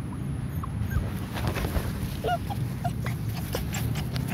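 Puppy giving several short, high whimpers, each a brief squeak that bends in pitch, over a steady low rumble with a few soft knocks.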